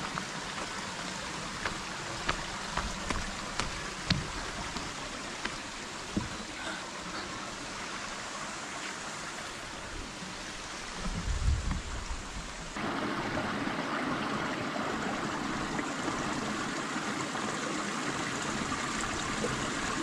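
River water rushing over rocks, a steady wash with a few light clicks in the first half and a low thump about eleven seconds in. About two-thirds of the way through, the water sound suddenly becomes louder and fuller.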